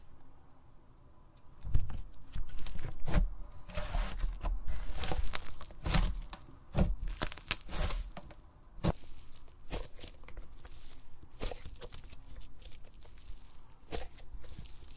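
Hands squeezing and stretching slime, with irregular crackling and popping. It starts about two seconds in, is densest in the middle and grows fainter toward the end.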